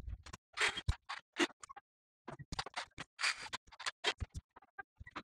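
Quiet, irregular scratching, scraping and tapping as a dash cap is handled and pressed into place over a truck dashboard: a string of short, separate noises with brief gaps between them.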